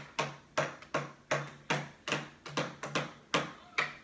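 A hammer knocking pieces of a children's build-and-play kit together, steady blows about three a second, each with a short low ring.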